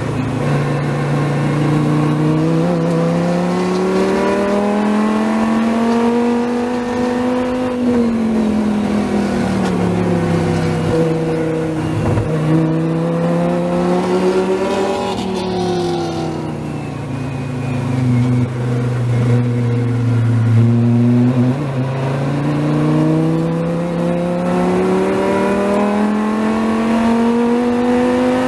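Dodge Viper race car's V10 engine heard from inside the car at racing speed. The engine note climbs steadily under full throttle, falls sharply twice with lifts and downshifts into corners, sits low for a few seconds, then climbs again near the end.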